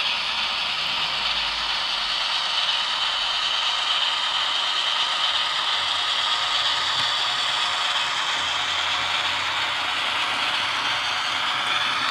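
Rivarossi ALn 663 FS model railcar running along the track, its motor and gears making a steady mechanical whirring and rattling.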